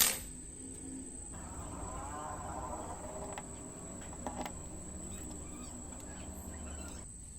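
A steady high-pitched whine over faint background noise, with a sharp click at the very start and a faint tap a little past the middle.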